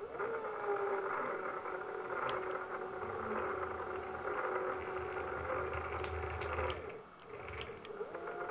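Stepper motors in the joints of a 3D-printed robot arm whine as the arm moves, their pitch gliding as they speed up and settle into a steady tone. The whine stops about seven seconds in and starts again with another glide a moment later.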